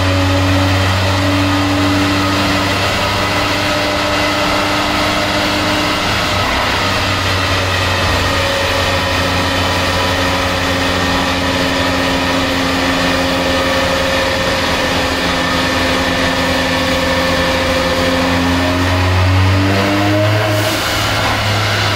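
Car engine running at steady revs, its revs rising a little near the end.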